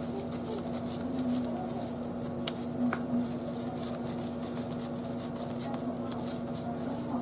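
Hands kneading bread dough and scraping it off the sides of a stainless steel bowl: soft, irregular rubbing and scratching, with two light knocks against the bowl about halfway through. A steady hum runs underneath.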